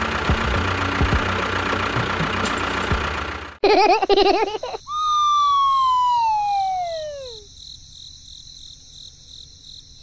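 A steady engine-like machine noise runs for about three and a half seconds, then cuts off abruptly. A short warbling, siren-like tone follows, then a long whistle that slides steadily down in pitch over about two and a half seconds, like a cartoon falling sound effect.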